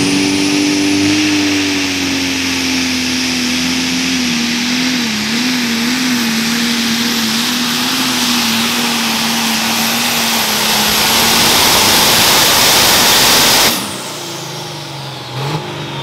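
Turbocharged diesel pulling tractor at full throttle under load: a steady engine drone under a high whine, wavering in pitch for a few seconds midway and growing louder toward the end. About fourteen seconds in, the throttle is cut sharply, the whine falls away and the engine drops to a much quieter run.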